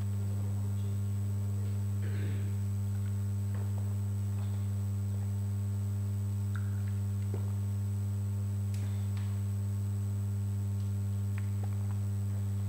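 Steady low electrical mains hum, with a fainter higher hum above it and a thin high-pitched whine, broken only by a few faint ticks.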